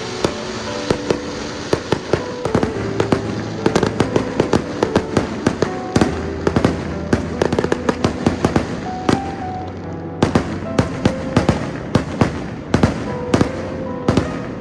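Aerial fireworks bursting in a rapid, irregular barrage of sharp bangs, several a second, with a continuous bed of crackle and echo between them.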